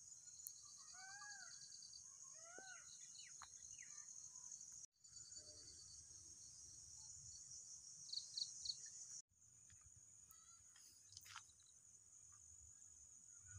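Faint, steady high-pitched drone of insects with a pulsing trill under it, and a few arched bird chirps about one and two and a half seconds in. The sound drops out briefly twice, about five and nine seconds in.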